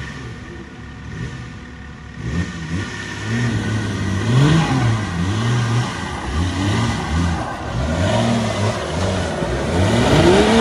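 BMW M57 twin-turbo straight-six diesel in a Nissan Patrol revving in repeated bursts as the truck crawls up a deep rutted trail under load. Its pitch rises and falls with each blip of throttle. It runs more quietly for the first couple of seconds, then gets louder.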